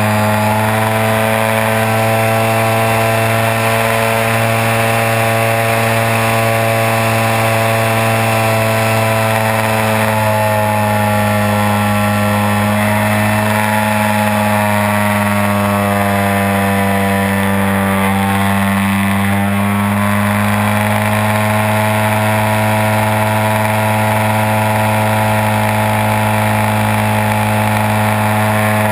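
Engine of a radio-controlled Extra 330 aerobatic plane running steadily, heard from a camera mounted on its wing with air rushing past. About halfway through, the engine note drops for several seconds, then climbs back.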